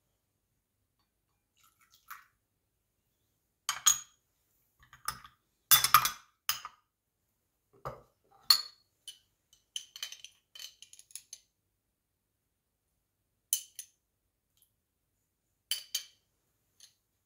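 A spoon clinking and tapping against a glass mixing bowl in a string of separate knocks, the loudest cluster about six seconds in, with a run of small light ticks around the middle.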